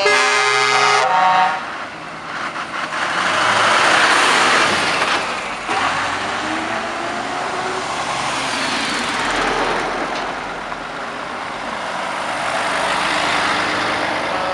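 Heavy trucks driving past one after another in a convoy, the engine and tyre noise swelling as each one passes. A multi-tone air horn sounds at the start and stops about a second in.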